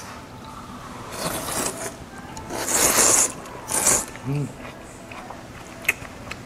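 Close-miked eating sounds: three noisy bursts of a second or less, the middle one the loudest, with a brief hum from the eater about four seconds in and a sharp click near the end.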